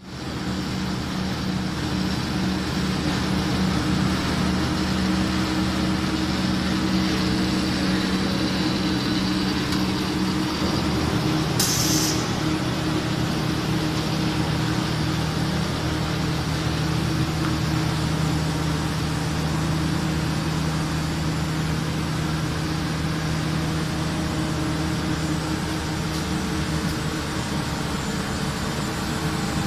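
ABA blown-film extrusion machine running: a steady mechanical drone of its motors and air-ring blower with a constant low hum. A short hiss cuts in once, about twelve seconds in.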